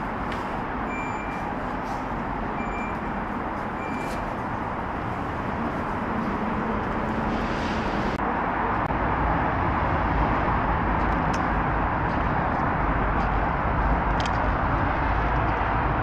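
Steady road traffic noise, getting louder and deeper in the second half. Three short high beeps sound in the first four seconds.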